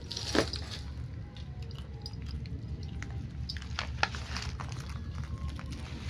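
Leaves and plant stems rustling and crackling as a pig-tailed macaque pounces into the undergrowth and forages, with a sharp snap about half a second in and another about four seconds in, over a steady low background noise.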